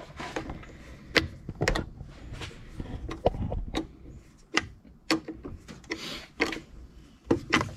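Irregular sharp clicks and knocks, about a dozen spread unevenly, of hand tools and parts being handled during wiring work on a car's engine bay.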